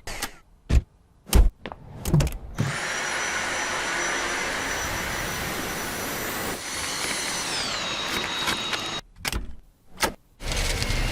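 Dyson cordless vacuum cleaner: a few sharp clicks, then the motor running with a steady rush and a high whine that drops in pitch about three quarters of the way through, followed by two more clicks.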